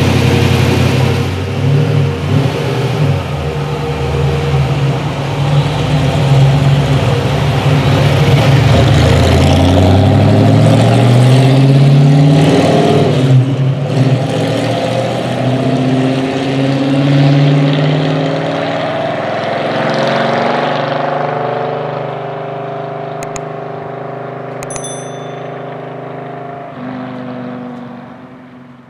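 A classic AC Cobra-style roadster's engine revving as the car pulls away, rising in pitch through two gears, then fading steadily as the car drives off into the distance.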